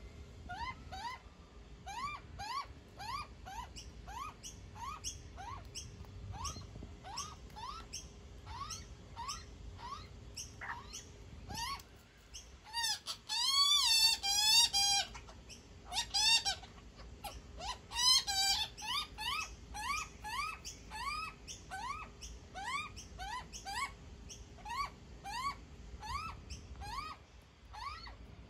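Juvenile Australian magpie begging to be fed: a steady string of short, rising squawks, a bit more than one a second. About halfway through it becomes louder and more frantic for a few seconds, twice.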